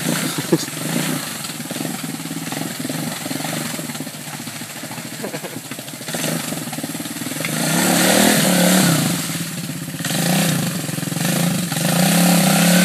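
Three-wheeled ATC's single-cylinder engine revving in rises and falls as it churns through deep mud and water, with its muffler underwater. The engine runs softer at first and gets louder about halfway through, with repeated revs.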